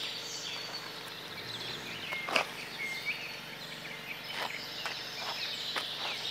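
Outdoor ambience: a steady hiss with a few short chirps and faint clicks, the clearest click about two and a half seconds in.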